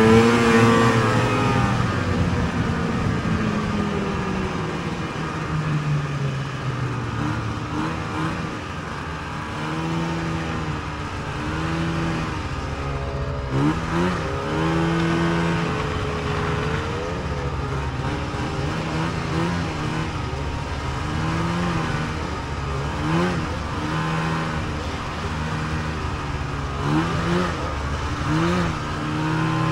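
Snowmobile's two-stroke engine, heard from the seat. It slows over the first few seconds with a falling pitch, then runs at low speed with short blips of throttle every couple of seconds.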